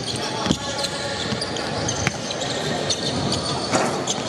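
Basketballs bouncing on a hardwood court in a large arena, with irregular sharp thuds over a background of faint voices.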